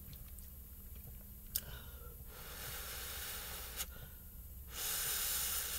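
A person drawing long breaths of air through the mouth, twice, the second louder, to cool a mouth burning from extra-spicy noodles; a couple of small clicks in between.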